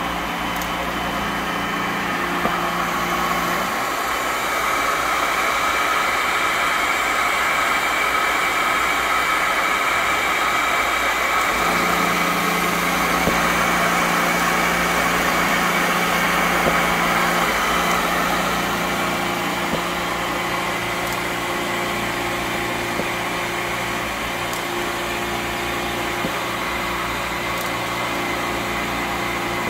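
Sock-making machines running steadily in a factory: a dense mechanical whirr with steady humming tones. A low hum drops out about four seconds in and returns about eight seconds later.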